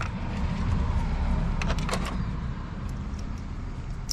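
A few short metallic clicks of sway-bar bolts and washers being handled and fitted to the rear beam, a little under two seconds in, over a steady low rumble.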